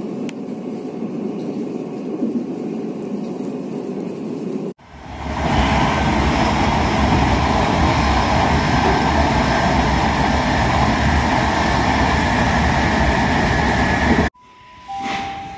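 Heathrow Express electric train running past with a moderate steady rumble. About five seconds in this changes to a loud, even rumble of wheels on rails, heard from inside a moving train as another train passes alongside, and it cuts off abruptly near the end. A two-note falling chime follows.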